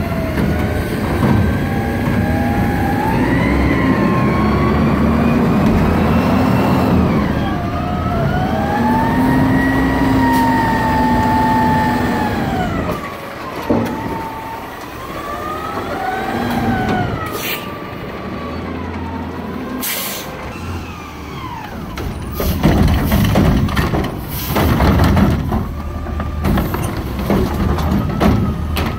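Front-loader garbage truck working its hydraulics: the engine is revved, and the pump whine rises and falls in pitch as the forks raise the carry can over the cab and dump it. In the second half come short sharp hisses, then clattering and banging as the carry can's automated arm lifts and tips a trash cart.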